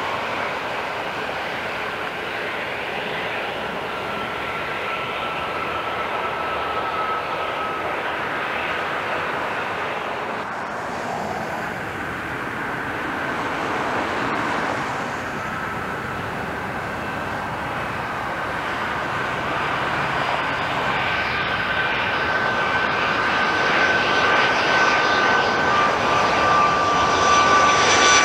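Jet airliner engines during landing: a steady roar with a thin whining tone, growing louder over the last ten seconds as an airliner with gear down comes in close on final approach.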